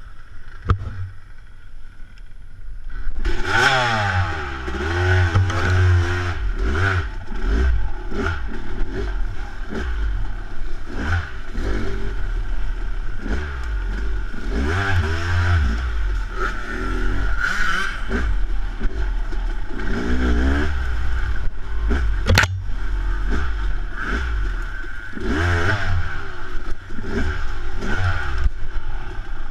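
Yamaha YZ250 two-stroke dirt bike engine revving up and down over and over under riding, quieter for the first few seconds before the revving picks up. Clattering and rattling run through it, with one sharp click about three-quarters of the way in.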